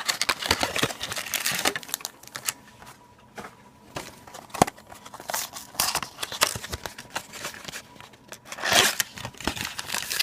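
Crinkling and tearing of plastic packaging as a box of trading cards is opened, with scattered small clicks and rustles of handling. It is densest in the first two seconds and again near the end.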